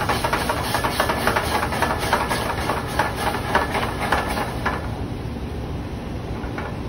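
Red wine reducing in a hot sauté pan of mushrooms and cabbage over a gas burner, sizzling and crackling densely as the alcohol cooks off; the sizzle thins out about two-thirds of the way through. A steady low rush runs underneath.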